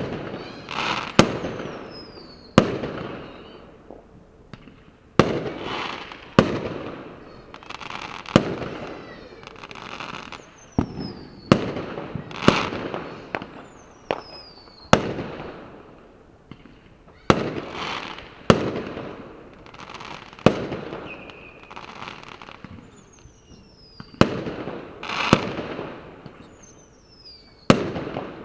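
Fireworks going off: sharp bangs every second or two, each fading out over about a second. Several are preceded by a whistle that falls in pitch.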